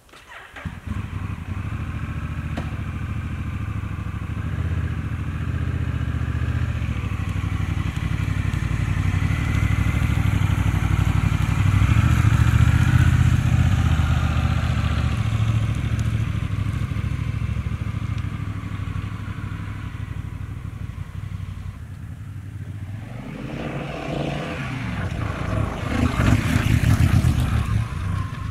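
Honda Rebel 1100's parallel-twin engine running as the motorcycle rides by, its rumble growing louder towards the middle and fading as it moves off. Near the end a crackling, rustling noise rises over it.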